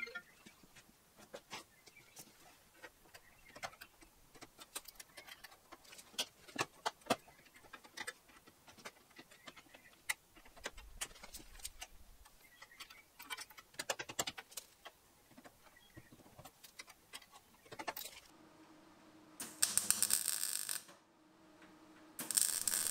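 Light, scattered metallic clicks and taps as steel radiator support brackets are handled and positioned. Near the end, two short bursts of electric welding as the supports are tack welded in place.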